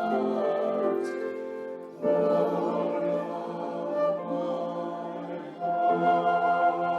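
Church service music: slow, held chords that change about two seconds in and again near the end.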